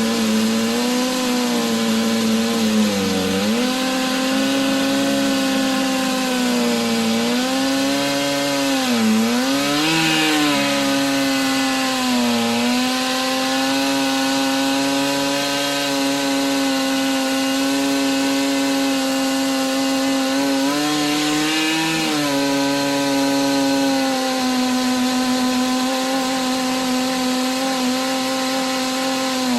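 Stihl MS 880 two-stroke chainsaw running at full throttle on an Alaskan chainsaw mill, ripping lengthwise through a green pine log with a 41-inch bar and ripping chain. The engine note holds steady but sags briefly under load three times in the first half.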